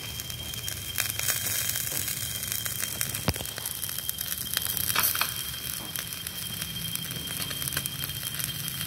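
Catfish grilling on bamboo skewers over glowing charcoal embers, crackling steadily with scattered sharp pops; the sharpest pops come about three seconds in and about five seconds in.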